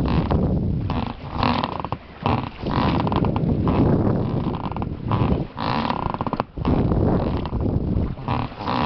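An inflatable boat being rowed: the oars creak in their oarlocks and splash on each stroke, about every two to three seconds, over a heavy rumble of noise on the microphone.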